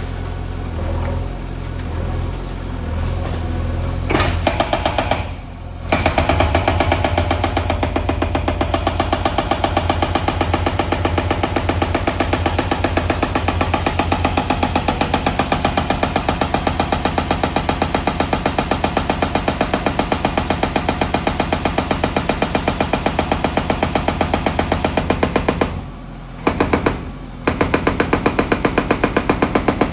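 JCB backhoe's hydraulic breaker hammering in rapid, even strokes, with the diesel engine running underneath. The hammering stops briefly near the end and then resumes.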